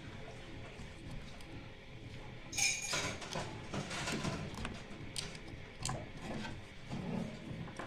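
Clicks, knocks and scrapes of small parts and tools being handled while a new high-voltage fuse and its holder are fitted inside a microwave oven, with a louder scraping rattle about two and a half seconds in and a few sharp clicks later.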